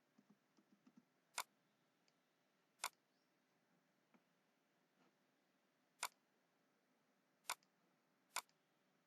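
Computer mouse clicking: five sharp single clicks at uneven intervals, with a few faint ticks in the first second.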